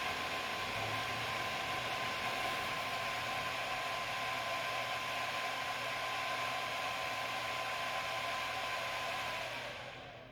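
Desktop computer's fans running at full speed on power-up, a loud steady whoosh with a whining tone. About nine and a half seconds in they spin down, the whine falling in pitch as the fans slow to normal speed once the machine has booted.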